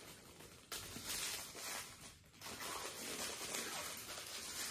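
Close-up eating sounds: a fried bread roll being chewed while a shawarma's paper and plastic wrapper crinkles and rustles. The rustling noise starts suddenly about a second in, breaks off briefly near the middle, then carries on.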